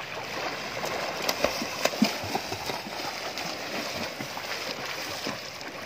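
Water splashing and churning as a swimmer kicks and strokes through a shallow river: a steady rough wash with scattered sharper splashes.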